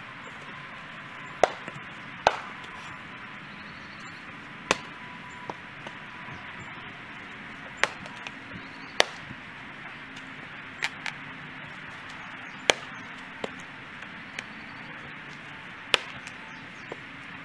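A Fiskars X27 splitting axe chopping firewood rounds: sharp wooden cracks and knocks at irregular intervals of one to three seconds, with a few softer knocks between them.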